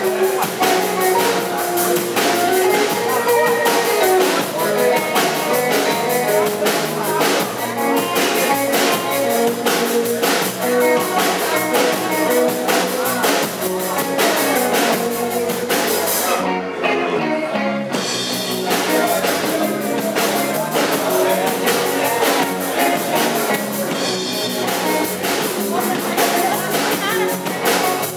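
Live rock band playing: electric guitars over bass and drum kit, with a brief break in the beat about two-thirds of the way through.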